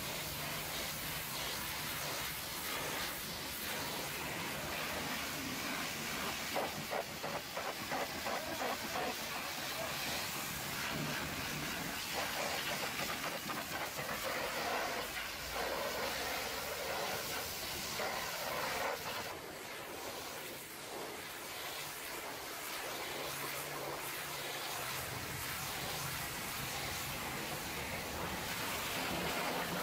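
High-pressure washer jet spraying water against a stainless steel tanker shell and a truck wheel: a steady hiss of spray.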